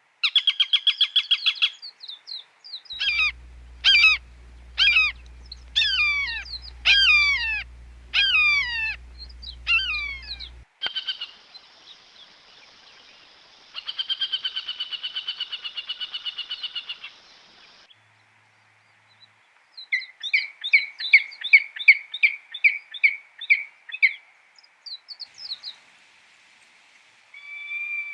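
Falcon calling in several bouts. First a fast, harsh chattering series, then a run of loud downward-sliding screams about one a second, then a long, fast trilled chatter, and after a pause another rapid series of sharp calls.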